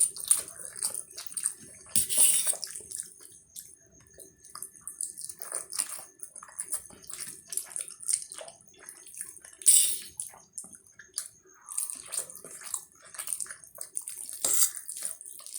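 Spicy Maggi instant noodles being eaten: wet slurps in irregular bursts, with smacking and chewing between them. The loudest slurps come about two seconds in, near the middle, and near the end.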